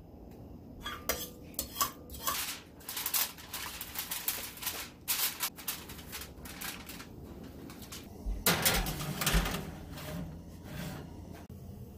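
Aluminium foil crinkling as it is pressed over a metal baking tray, in many short crackles. About two thirds of the way through comes the loudest sound, a metal scrape and clatter as the tray is slid onto the oven rack.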